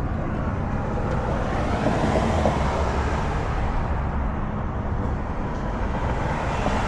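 Steady low rumbling background noise, like road traffic, with no distinct knocks or tool strikes.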